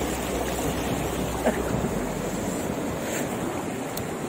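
Fast-flowing river rushing between rocks: a steady wash of water noise. Wind rumbles on the microphone until about halfway through.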